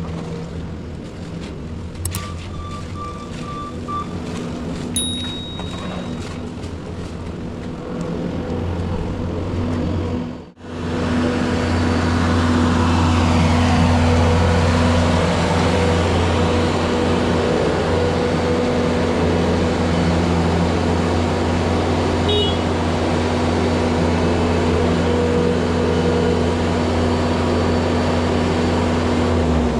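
Heavy-equipment engine running steadily, with short beeps in the first few seconds; about ten seconds in the sound breaks and comes back louder and closer.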